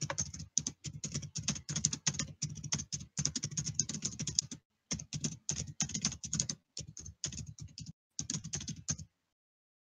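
Computer keyboard typing in quick runs of keystrokes with short pauses between runs, stopping about nine seconds in.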